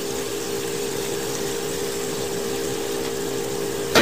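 Chicken sizzling in a stainless steel pot, with a steady hum and hiss under it. Right at the end, a single sharp knock as wooden chopsticks strike the pot to start stirring.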